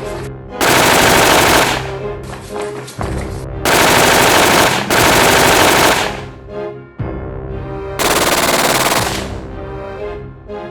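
Four bursts of rapid automatic gunfire, each lasting about a second, the last coming near the end, over background music.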